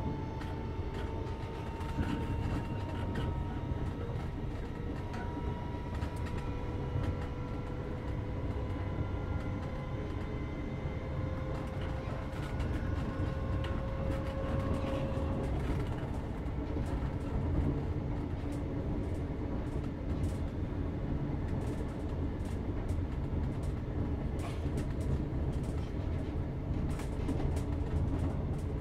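Inside a Class 321 Renatus electric multiple unit's motor coach: a steady rumble of wheels on track with scattered clicks and knocks. Over the first half, the traction motor whine rises slowly in pitch as the train gathers speed, then fades into the running noise.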